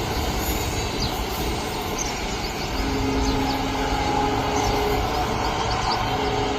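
Goods train running on the track, a steady rumble of the wagons. A steady two-note hum joins about three seconds in.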